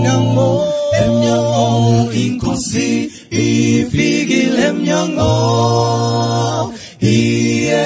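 Male a cappella vocal group singing a gospel song in close harmony, with held chords over a deep bass line. The voices break off briefly about three seconds in and again near the end.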